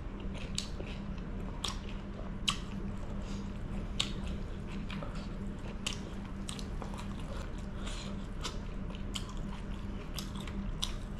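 Chewing and wet mouth sounds of someone eating chicken curry by hand: sharp clicks and smacks at irregular intervals, about one a second, over a steady low hum.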